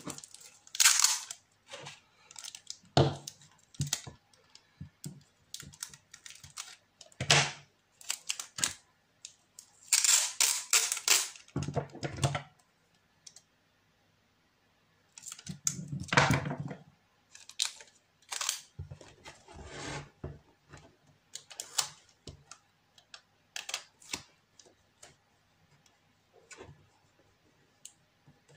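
Sellotape being pulled off the roll, cut with scissors and pressed around the edge of a resin clock face: irregular clicks, snips and short rasps, with a longer rasp about ten seconds in.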